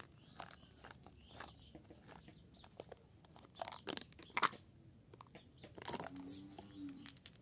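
Foil lid of a plastic snack cup being peeled back and crinkled by hand: scattered crackling and small tearing sounds, loudest about four seconds in.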